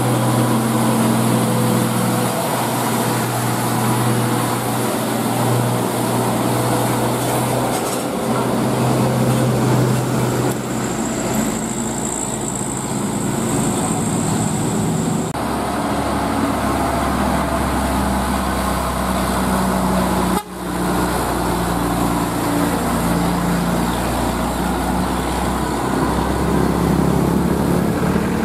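Diesel engines of heavy trucks, among them an Isuzu Giga container truck, running steadily under load as they pull up a steep climb close by.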